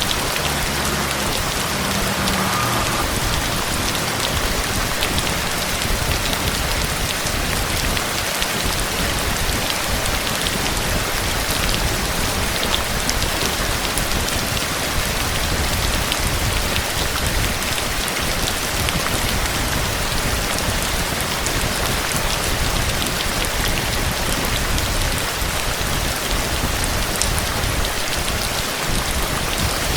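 Steady rain falling on a hard surface, an even hiss with scattered individual drop ticks.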